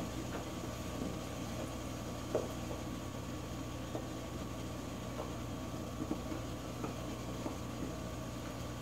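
A teething puppy gnawing on a rubber ball toy: scattered soft clicks of teeth on rubber, one a little louder about two seconds in, over a steady low hum.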